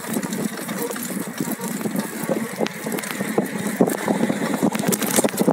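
Wheels rolling over a concrete footpath and asphalt road during a ride, a steady rumble broken by many irregular rattles and knocks.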